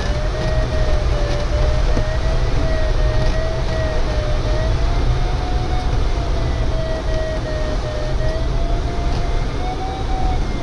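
Glider variometer giving a continuous electronic tone that slowly wavers up and down in pitch as it follows the glider's vertical speed, over the steady rush of airflow and a low rumble in the DG505's cockpit.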